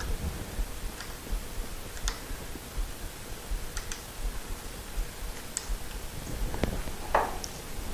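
Scattered light clicks and taps from small metal shift-linkage parts being handled and fitted together, with a louder, slightly ringing clink about seven seconds in.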